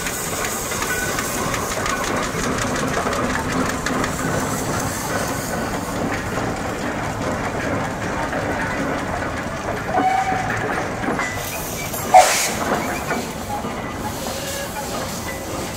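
Steam road vehicles driving past at low speed, first a steam traction engine and then a steam waggon, their engines running steadily. A single sharp, loud burst comes about twelve seconds in.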